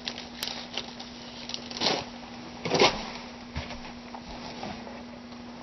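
Plastic bags being handled, rustling and crinkling in short bursts, the two loudest about two and three seconds in, with a few small clicks, over a steady low hum.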